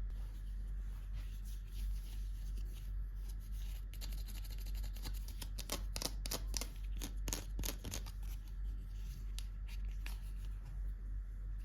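Packaging being handled and opened by hand: a run of crackly crinkles and small tearing clicks, thickest in the middle, over a steady low hum.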